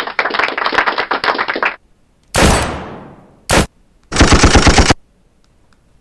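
Canned gunfire sound effects played by a TT-K5 live-streaming sound card's effect buttons. A rapid rattling volley comes first, then a single loud shot a little over two seconds in that fades away slowly, a short blast, and about four seconds in a quick burst of machine-gun fire.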